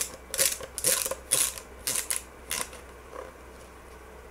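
Rustling and crinkling of a rolled poster as it is unwrapped and unrolled by hand, in a quick run of about seven scrapes during the first two and a half seconds.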